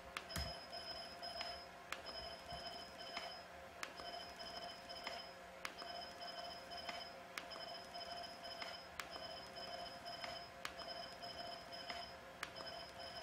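Jeisys ULGEN HIFU handpiece firing shot lines on the cheek: a high electronic tone lasting a little over a second, each starting with a click, repeating about every two seconds over a steady hum.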